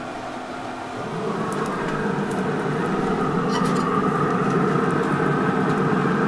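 Hot links sizzling over the open flame of a Pit Boss pellet grill, over the grill's steady fire-and-fan noise, with a few small crackles. The sound swells about a second in and stays up.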